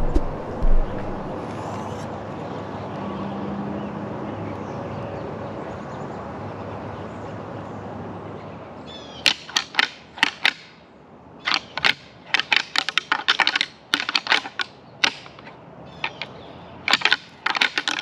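A steady rustling hiss, then from about halfway through a run of sharp dry clicks and crackles in irregular quick clusters.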